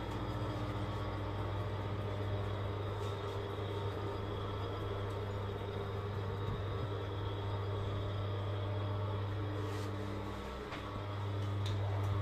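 Electric drive motor of a retractable folding-fabric pergola roof running with a steady low hum as the pleated roof retracts along its rails. The hum drops away briefly about ten and a half seconds in, then returns a little louder.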